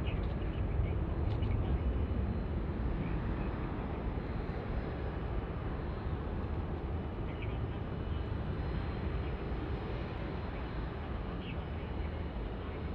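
Low, steady rumble of distant jet airliner engines, slowly fading, with a few faint high chirps over it.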